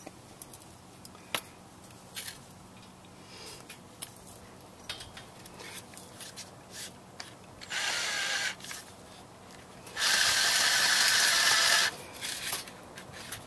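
Cordless drill driving a self-tapping screw into the steel tubing of a compost tumbler stand: a short run of about a second, then a longer, louder run of about two seconds, with light clicks and taps of handling in between. The screw is hard to get through the metal.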